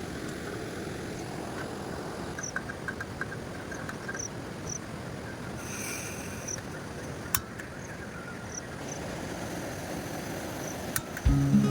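Steady rushing of a river, with a few faint short high chirps over it. Music comes in near the end.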